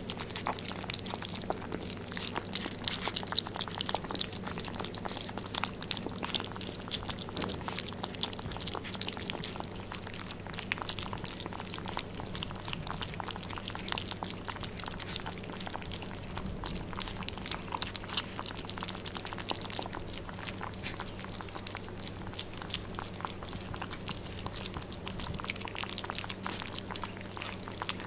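A litter of 32-day-old Bichon Frise puppies eating soft weaning food from one shared metal bowl: a dense, continuous patter of small lapping and smacking clicks.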